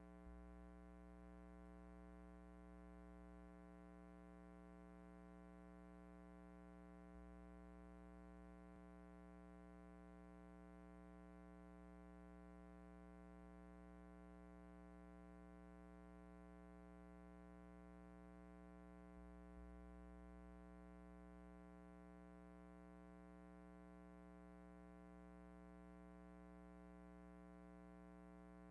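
Near silence: only a faint, steady, unchanging hum.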